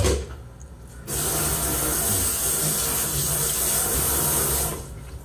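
Kitchen tap running in a steady rush for about three and a half seconds, starting about a second in and cut off abruptly near the end, after a short knock at the very start.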